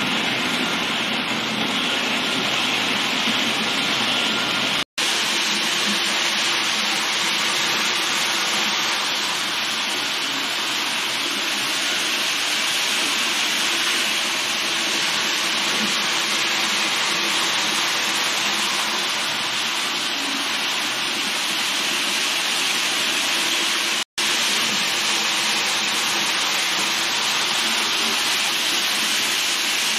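Roco H0-scale Taurus electric locomotive model with its train of tank wagons running along the track: a steady rushing noise from wheels, motor and the locomotive's sound decoder. It drops out for an instant twice, about five seconds in and near the end.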